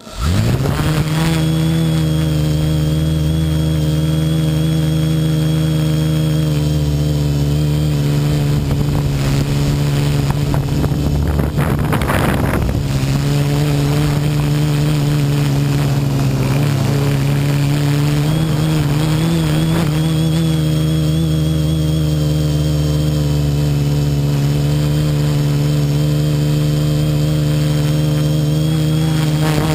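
DJI F450 Flame Wheel quadcopter's four brushless motors with 10-inch carbon-fibre props spinning up sharply for takeoff, then a loud steady hum in flight whose pitch wavers slightly with the throttle. Heard from the camera mounted on the quadcopter itself, with a brief rushing noise about twelve seconds in.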